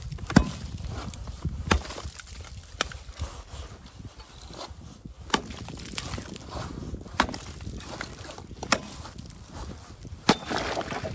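Long-handled steel ice chipper striking and breaking thin pond ice, with sharp chopping hits about a second or two apart, roughly seven in all.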